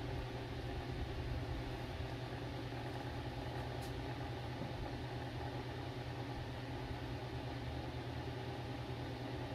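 Electric box fan running steadily, a low motor hum with rushing air, with a small personal wind turbine spinning in its draft. A light tick a little under four seconds in.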